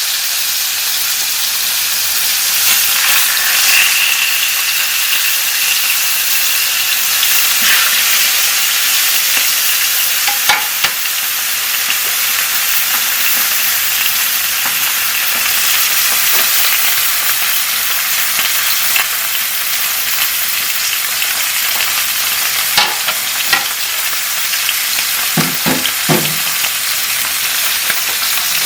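Flounder sizzling as it fries in oil in a pan: a steady, dense hiss with scattered crackling pops, and a few sharper knocks near the end.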